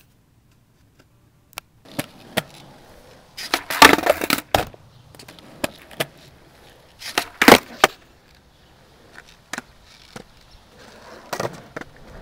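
Skateboard on concrete: the board's tail popping and the board clacking down, in two loud clusters of knocks about four seconds in and again past seven seconds, with quieter single clicks between.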